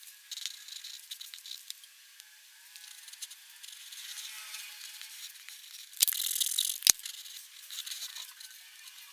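Black pigment pen nib scratching across paper in many short strokes, with a louder stretch of rapid scratching about six seconds in that ends in a sharp tick.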